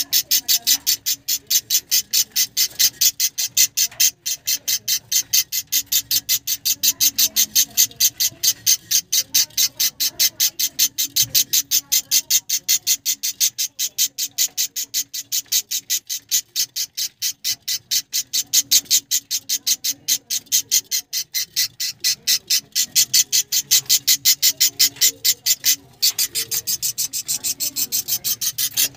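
Budgerigars calling in a rapid, even series of short high-pitched chirps, about four a second, with a brief pause near the end.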